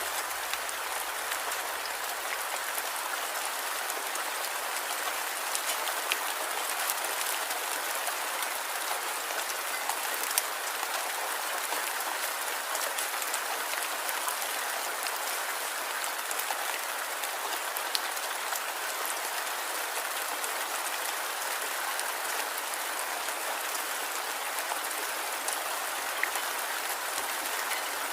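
Light rain falling steadily, a constant patter with scattered individual drops ticking on a surface now and then.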